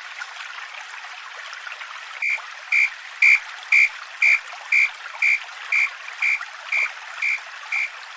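Railway level-crossing warning bell starting about two seconds in, just after a click, and ringing a single bright electronic tone about twice a second, over a steady hiss.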